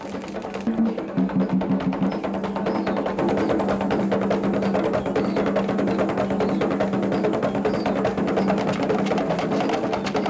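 Several tall wooden hand drums played together in a fast, dense rhythm, growing louder about a second in, with a steady low tone underneath.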